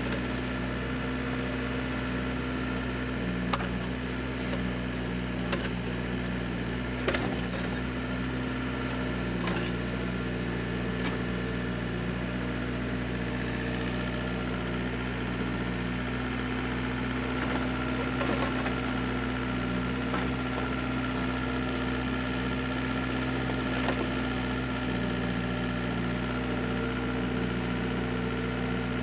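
Diesel engine of a Neuson 6003 mini excavator running steadily, with a few sharp knocks and clanks scattered through it, the loudest about 3.5 and 7 seconds in.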